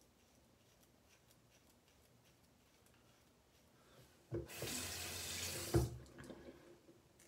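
Sink tap running briefly, about a second and a half of water hiss, with a knock as it comes on and a louder knock as it shuts off.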